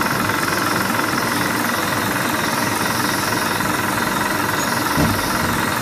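Adhesive-label flexo printing machine with die cutter running: a steady, dense mechanical clatter, with one short thump near the end.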